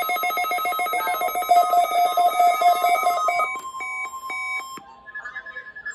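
NOAA Weather Radio's steady 1050 Hz warning alarm tone, sent as part of the weekly test, with a weather radio receiver's fast pulsing alarm beeping over it. The pulsing stops about three and a half seconds in, a few beeps of changing pitch follow, and the 1050 Hz tone cuts off about five seconds in.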